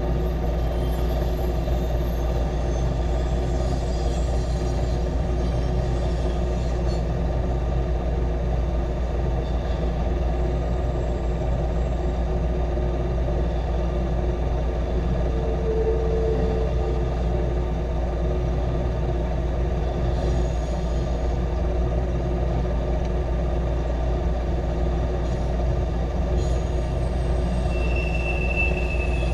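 Double-stack intermodal container cars of a freight train rolling steadily past, a continuous low rumble of wheels on rail.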